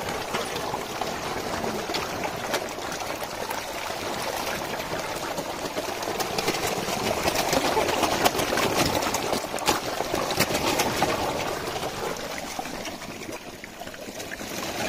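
Splashing, churning water as a crowded shoal of large river fish thrashes at the surface, snatching grain thrown to them. The small splashes come thick and fast, busiest in the middle and easing off near the end.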